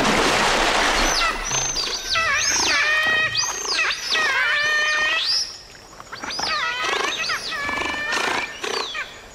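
A splash of water at the start, then giant otters calling: a run of loud squealing calls, each sweeping up and falling back, one after another from about a second in until near the end.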